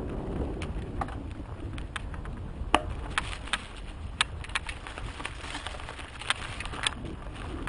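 Mountain bike descending a rough dirt trail fast, heard from a helmet-mounted camera: a steady low rumble of wind and rolling, broken by irregular sharp clicks and knocks from the bike jolting over the ground.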